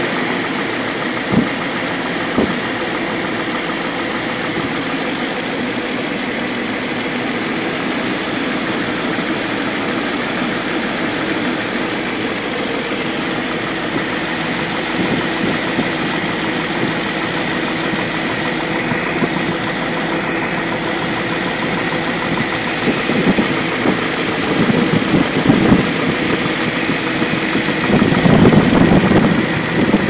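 BMW M62B44TU 4.4-litre V8 idling with its new timing chain tensioner fitted; a knocking sound from the left side of the engine is the only noise left. A few sharp clicks sound in the first couple of seconds, and the sound gets louder and more uneven in the last several seconds.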